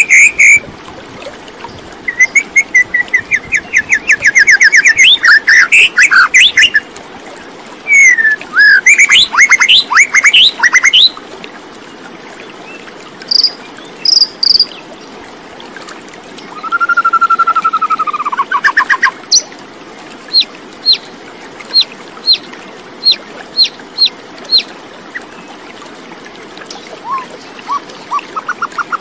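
Birdsong: a varied run of phrases made of rapid trills of repeated notes, quick sweeping notes, a slurred whistle, and a string of short high chips about two a second near the end.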